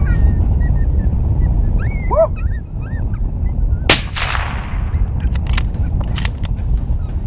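A single rifle shot about four seconds in, its crack trailing off in echo, after a few short rising-and-falling yelping calls. Wind rumbles on the microphone throughout, and a few sharp clicks follow the shot.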